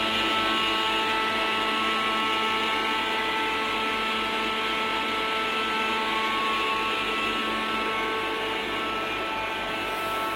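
Panel air conditioner running: a steady motor hum from its fan and compressor, with several fixed whining tones over even fan noise.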